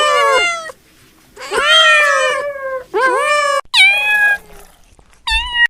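A domestic cat meowing again and again: about five meows with gaps between them. The pitch of each call bends up and down, one near the middle falls away, and a short one comes near the end.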